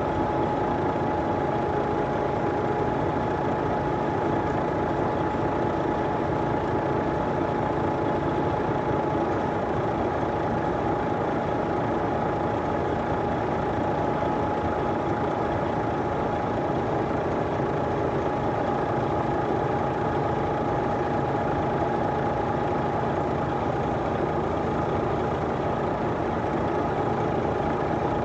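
Heavy diesel engine idling steadily, with a constant high whine over the engine noise.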